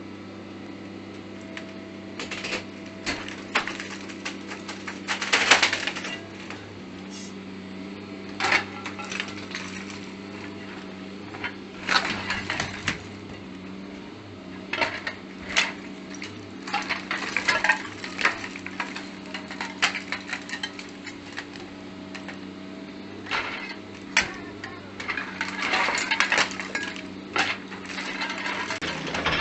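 Mini excavator engine running steadily while rubble and metal debris clatter and crash in repeated bursts of sharp impacts.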